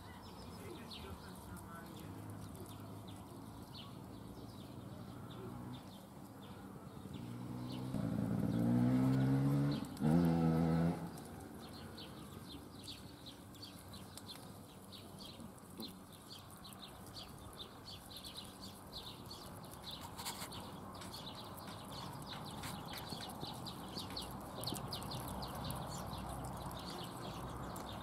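A cow mooing in the background: one long low call about a third of the way in, then a shorter one right after it, over faint outdoor ambience with light scattered clicking.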